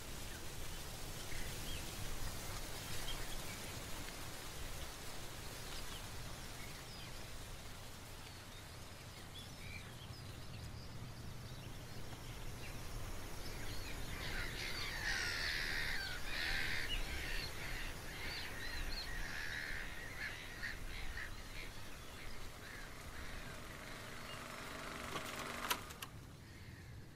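Birds chirping over a steady low rumble, the chirping busiest in the middle of the stretch, with one sharp click near the end.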